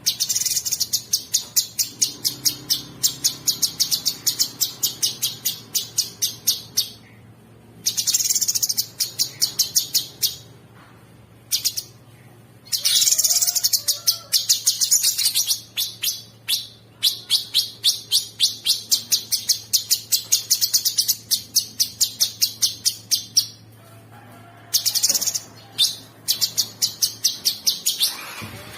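Cucak sungkok singing a rough, rapid chattering song: trains of sharp repeated high notes lasting several seconds each, broken by short pauses. A faint steady low hum sits underneath.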